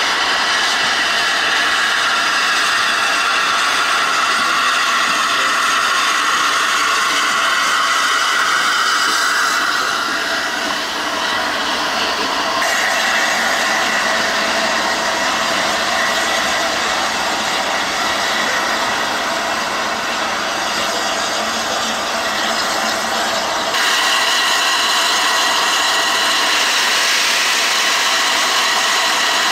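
Railway locomotive at rest, a steady hiss mixed with mechanical running and rattling. The sound changes abruptly twice.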